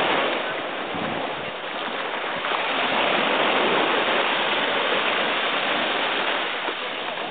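Small waves washing up on a sandy beach: a steady rushing hiss.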